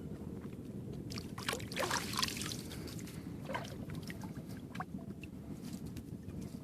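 Water sloshing and splashing in a few short bursts, the loudest about one and a half to two and a half seconds in, over a steady low rumble.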